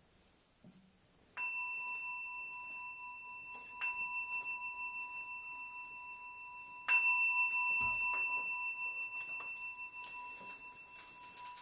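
Small Buddhist bowl bell struck three times with a wooden striker, a few seconds apart. Each stroke rings on in a clear two-note tone that slowly fades, and the third is the loudest. The three strokes mark the opening of a Zen talk.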